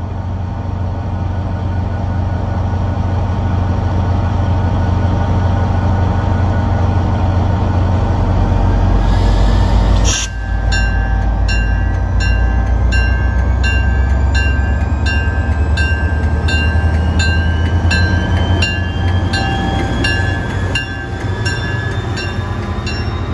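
EMD GP40FH-2M diesel locomotive running at the platform, its engine throttling up about eight seconds in as the train starts to pull away. About ten seconds in there is a sharp burst, then the locomotive bell rings steadily about twice a second, and a whine climbs in pitch as the train gathers speed.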